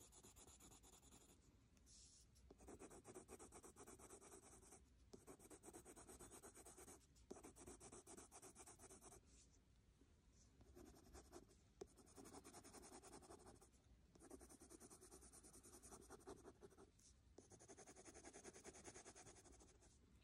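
Wax-based Prismacolor coloured pencil shading on smooth paper: faint, quick back-and-forth scratching strokes in bouts of a few seconds, with short pauses between them, as colours are layered and blended.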